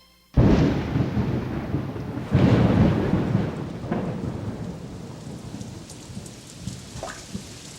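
Thunderstorm: a sudden clap of thunder just after the start, and a second rumble about two seconds in. Both roll off slowly into a steady hiss of rain.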